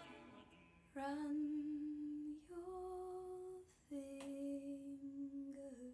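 A woman singing softly and unaccompanied: three long held notes, the middle one a little higher than the other two.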